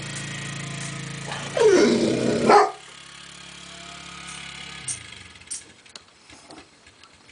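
ATV engine running steadily while a dog barks loudly over it, about one and a half to two and a half seconds in. The engine then drops suddenly to a fainter, more distant running, with a few scattered clicks.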